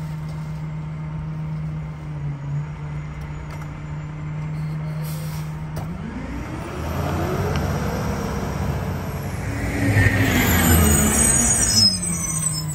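McNeilus rear-loader garbage truck idling with a steady hum, then its engine revs up and back down about six seconds in as the hydraulic packer cycles to compact the Christmas trees in the hopper. Hiss and high squeaks from the packer are loudest near the end.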